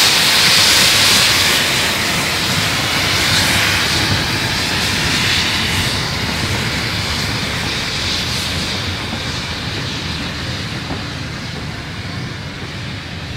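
Steam locomotive and its train passing, a loud hiss of steam over a low rumble, fading steadily as it draws away.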